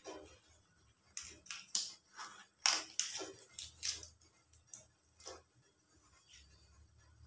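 Banana leaf crinkling and rustling as it is folded into a parcel, in a run of short, crisp crackles through the middle, then quieter handling.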